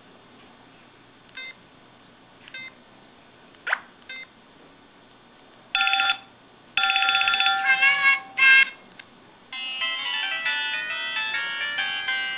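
Built-in sound effects and ringtone melodies playing from an IM-6100 mobile phone: a few faint short blips and a quick rising chirp, then about six seconds in louder electronic tones and a short melody, and from about ten seconds a polyphonic ringtone tune.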